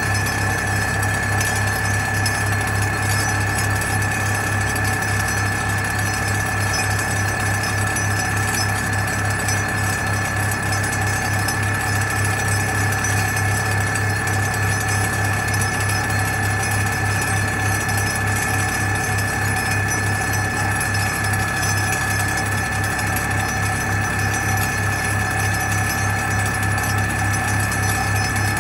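ThyssenKrupp MS-10 vibratory pile-driving hammer running steadily on a steel pipe pile: a continuous heavy mechanical drone with a steady high-pitched whine over it.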